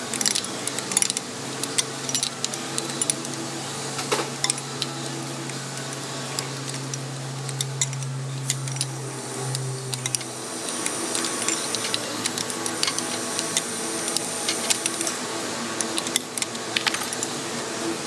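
Irregular metal clicks and clinks from a ratchet wrench working a tight bolt on an engine. A steady low hum runs underneath and stops about ten seconds in.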